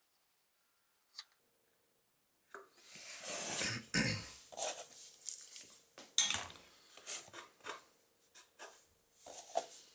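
Hands working on a hard plastic air filter housing: irregular scraping, rubbing and sharp clicks, starting about two and a half seconds in after a quiet stretch.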